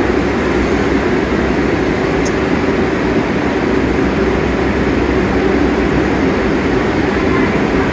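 Steady drone of a subway shuttle train standing at the platform, its air conditioning running, in an underground station.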